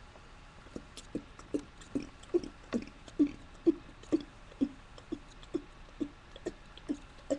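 A person burping in quick hiccup-like bursts: a string of about sixteen short, low burps at an even pace of about two a second, starting about a second in.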